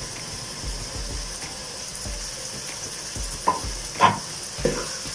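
Vegetables and spices sizzling in an aluminium pot, a steady hiss. Near the end a metal spoon knocks against the pot three times as stirring starts.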